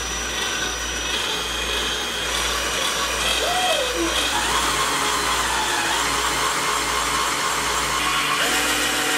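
Electric drill running steadily as a 5/16-inch twist bit bores through a cured epoxy resin casting, its pitch shifting a few times.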